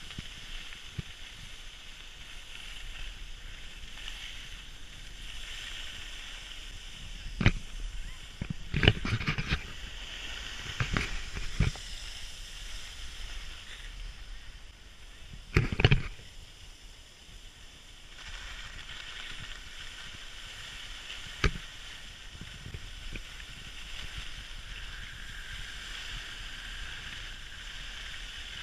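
Skis sliding over packed snow, a steady hiss, broken by a scatter of sharp knocks in the first half, the loudest just past the middle, and one more later on.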